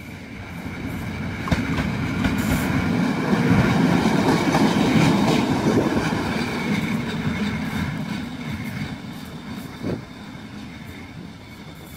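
A PKP Intercity electric locomotive running light passes close by, its wheels rumbling and clattering over the rail joints. It grows louder to a peak about four to five seconds in, then fades as it moves away. There is a sharp click about a second and a half in and a short knock near ten seconds.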